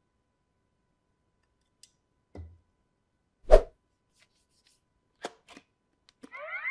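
Scattered clicks and knocks with one loud, sharp bang about three and a half seconds in; a voice starts just before the end.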